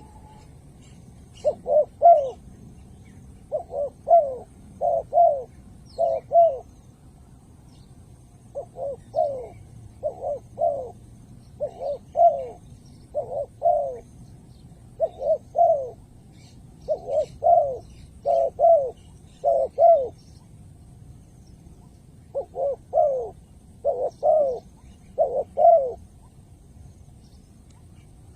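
Spotted dove cooing: repeated short phrases of two or three notes, each note falling in pitch, a phrase every second or two with a few longer pauses between.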